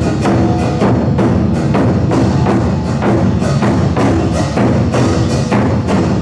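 Korean moduм-buk drum ensemble playing a steady, driving beat of about three strokes a second, with gong and cymbals.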